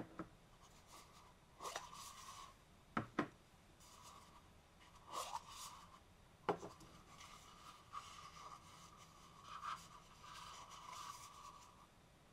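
Plastic parts of a KitchenAid shave ice attachment being handled: a handful of light clicks and knocks, the sharpest around three seconds and six and a half seconds in, between stretches of plastic rubbing and scraping against plastic.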